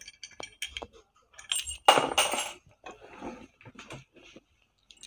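Light clicks, clinks and rattles of a pedestal fan's plastic stand pole and its metal screw being handled, with the loudest rattle about two seconds in.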